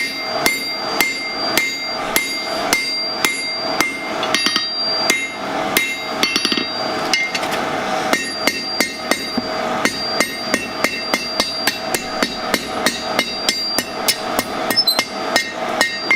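Blacksmith's hammer striking a steel bar on an anvil, straightening the forged hook: a steady run of ringing blows, about three a second, quickening in the second half.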